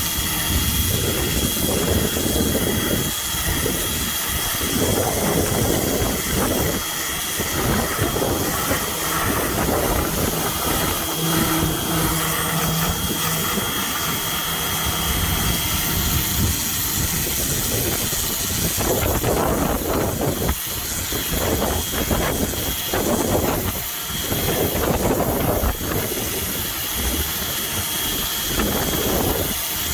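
Pressure washer running, its jet hissing against the boat's hull, the spray noise swelling and dropping as the jet moves, over a steady motor hum and thin whine.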